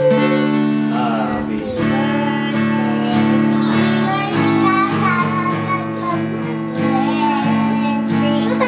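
Background music: a song with a high sung vocal over sustained guitar chords.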